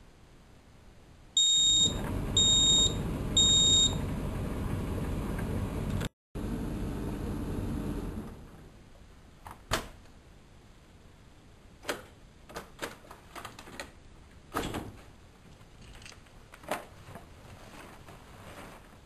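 Whirlpool Expert 1000 washing machine beeping three times in short high tones, about a second apart, over a steady running noise that stops about eight seconds in. A few scattered clicks follow.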